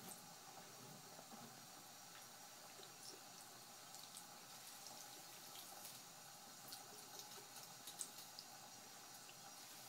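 Faint thin stream of tap water running from a bathroom faucet into the sink basin, with small scattered splashes and drips as a cat paws at the stream; the sharpest splash comes about eight seconds in.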